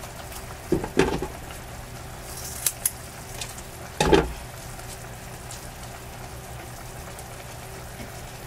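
Lean ground beef sizzling steadily in a frying pan on the stove. A few sharp knocks from handling come about a second in and again about four seconds in.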